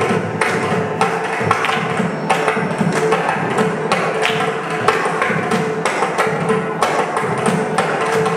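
Several mrudangams played together: fast, dense hand strokes on the tuned drum heads, over a steady held tone.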